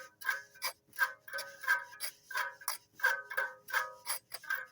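Cowbells clanking in quick, uneven strokes, about three or four a second, each with a short metallic ring.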